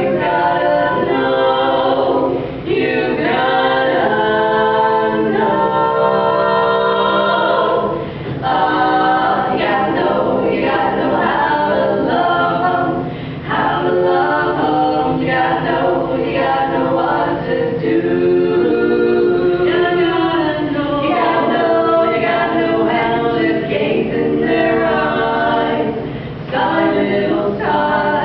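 A cappella vocal group singing in harmony, several voices at once with no instruments, in phrases broken by short pauses.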